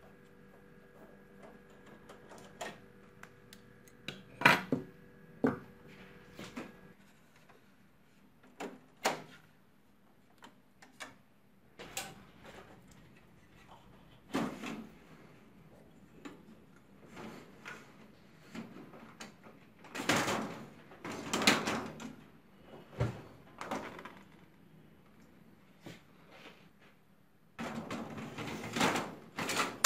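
Scattered clicks and knocks of plastic and metal parts as a Xerox WorkCentre copier's fuser and transfer belt unit are unlatched and handled, with louder clattering about twenty seconds in and again near the end. A faint steady hum stops about seven seconds in.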